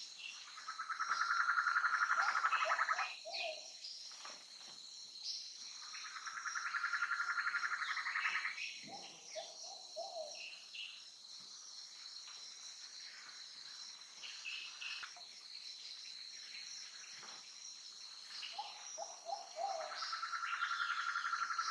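Amazon rainforest wildlife: a steady high insect chorus throughout. Three times, a loud pulsing trill swells up for about two seconds, each followed by a short series of three or four lower hooting notes.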